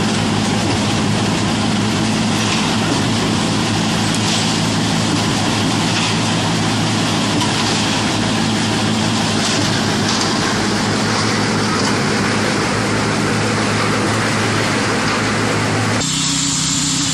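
Concrete mixer pump running steadily under load: a constant low engine drone with a dense layer of mechanical noise over it. About sixteen seconds in the sound changes abruptly to a different, thinner machine tone.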